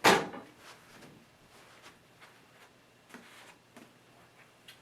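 A short, sharp noise right at the start that dies away within a moment, then quiet room tone in a small room, picked up by the camcorder's built-in microphone, with a few faint ticks.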